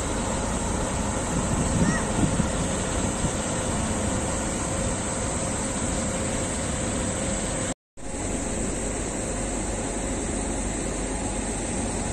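Indian Railways WAG-9 electric locomotive and its freight wagons running past: a steady rumble of wheels on rails with a faint steady hum. The sound cuts out abruptly for a moment about eight seconds in, then carries on as before.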